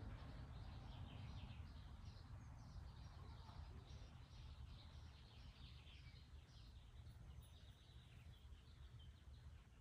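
Near silence: a low background rumble with many short, faint high chirps throughout.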